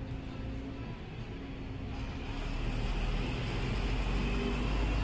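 A motor vehicle's low engine rumble, growing louder from about two seconds in as it nears.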